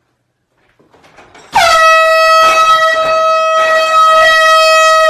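Air horn blasting one long, very loud steady note that starts about a second and a half in, after near silence, sliding down slightly in pitch as it begins.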